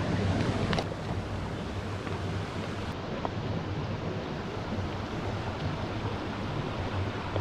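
Steady rushing of a stream's flowing water, with a light knock a little under a second in.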